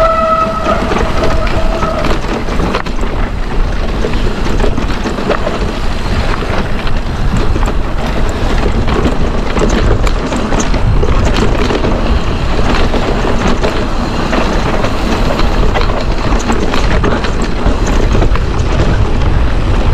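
Mountain bike rattling and clattering over rocks on a rough descent: frame, chain and suspension knocking continuously, with wind rumbling on the helmet camera's microphone. A steady high squeal sounds for the first couple of seconds.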